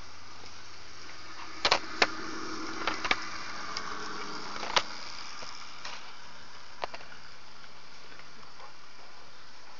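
H0-scale model train running past, its running noise swelling and fading, with a few sharp, irregular clicks from the wheels on the track.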